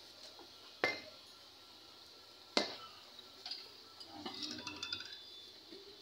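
Steel auto-rickshaw axle parts and tools knocking together as they are handled: two sharp metallic clanks about a second and a half apart, then a run of lighter ringing clinks.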